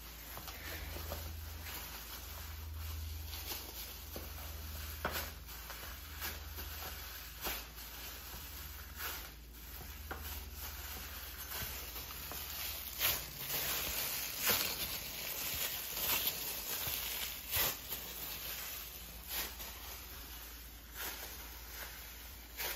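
Plastic-gloved hands kneading and squishing a sticky mixture of dates and crushed nuts on a plastic tray: soft irregular squelches and crinkling of the loose plastic gloves, with scattered small clicks.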